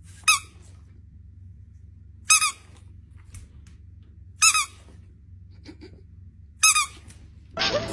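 A squeaky dog toy squeezed four times, about every two seconds, each time a short high squeak.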